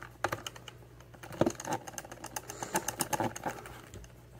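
Plastic Transformers Bumblebee toy figure being handled and worked, its hard plastic parts giving a run of irregular light clicks and taps. The sharpest click comes about a second and a half in.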